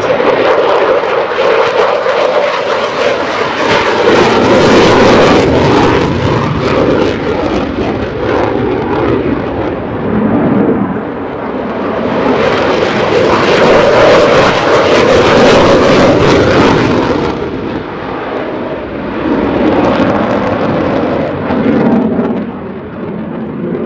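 F-35 Lightning II jet fighter flying past, its F135 turbofan making loud jet noise that swells twice, around four seconds and again from about twelve to seventeen seconds in, easing between and near the end.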